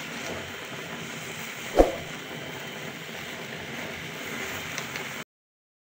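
Steady hiss of a gas stove burner under a pan of milk tea, with a single sharp knock about two seconds in. The sound stops abruptly near the end.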